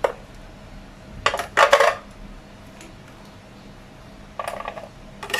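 Metal tongs clinking and clattering against a stainless steel pot as sterilized feeding bottle parts are lifted out of the hot water and set in a plastic tray: a few separate knocks, the loudest cluster about a second and a half in and another near the end.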